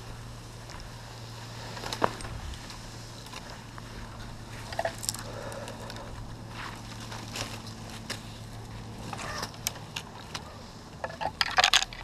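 A tree climber's hands, rope and gear moving against oak branches: scattered clicks, scrapes and rustles, with a sharp click about two seconds in and a quick clatter of clicks near the end.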